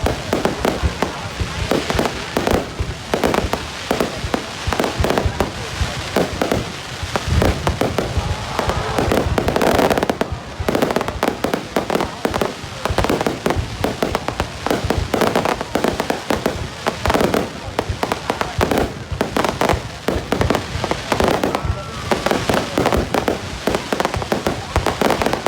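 Fireworks display going off in a rapid, continuous string of sharp bangs and pops, with barely a gap between them.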